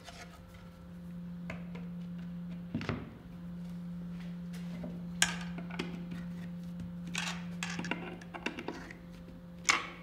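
Scattered clicks and knocks of laminated panels and Clamex P-10 connector fittings being fitted together and tightened with a hex screwdriver, over a steady low hum.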